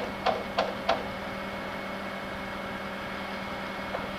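Hammer blows on timber framing, three sharp strikes about three a second in the first second, then a pause with a steady low hum in the background.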